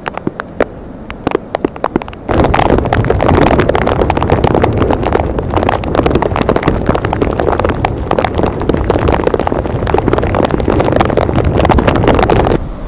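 Hurricane wind buffeting the microphone. At first there are scattered sharp pops, then about two seconds in it turns into a loud, continuous rush of gusting wind with rapid crackling, which cuts off suddenly just before the end.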